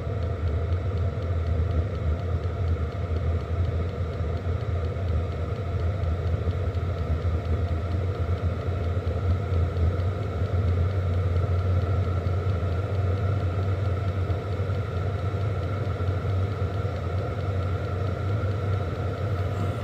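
An 8 kW diesel air heater converted to burn used oil, running at full burn just after startup: a steady low rumble with a faint, steady higher whine over it.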